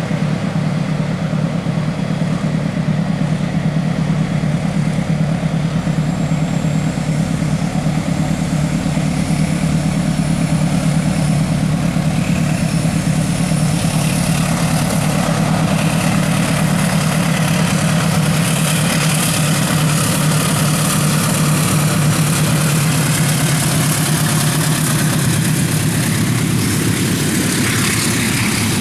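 Diesel locomotive engine running with a steady low drone while hauling a freight train, with a hiss of wheels on the rails growing louder in the second half.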